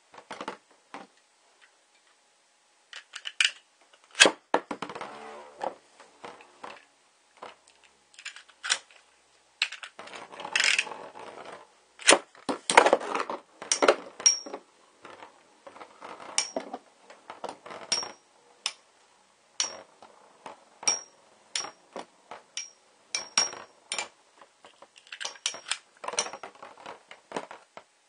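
Two Metal Fight Beyblade spinning tops, Rock Giraffe and Galaxy Pegasus, scraping around a plastic stadium and clashing again and again with sharp metallic clicks and clinks, some ringing briefly.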